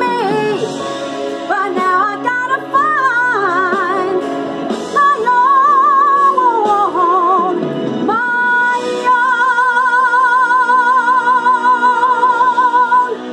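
A woman singing solo in full voice over backing music: quick runs of notes, then from about nine seconds in one long high note held with even vibrato that stops just before the end.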